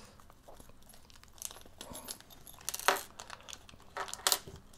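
Small clear plastic bag crinkling as fingers pick and pull at the paper sticker sealing it, a run of irregular sharp crackles, the loudest about three seconds in and near the end.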